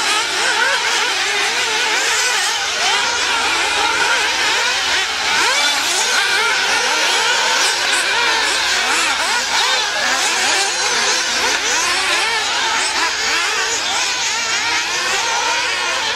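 Several 1/8-scale nitro RC buggies' small two-stroke glow engines running at high pitch, revving up and down as they lap the track, their pitches overlapping.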